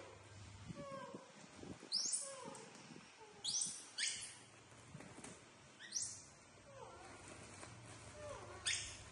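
Young macaque monkeys calling: short whimpering coos that fall in pitch, repeated about once a second, with a few sharp high squeals among them.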